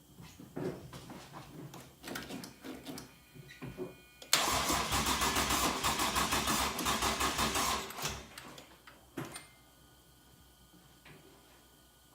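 Swapped Toyota 1JZ VVT-i engine cranking on its starter for about three and a half seconds with an even pulsing rhythm, then stopping without firing. The owner first blames a dead battery; the fault turns out to be an immobilizer built into the stock ECU. Small knocks and clicks come before the cranking.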